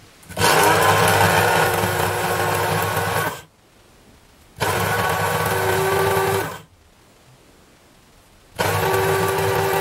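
Electric blade grinder with a stainless steel cup running in three separate bursts, the last still going at the end, grinding dry cigar tobacco into powder. It is run in short passes so that friction in the grinding chamber doesn't heat the tobacco.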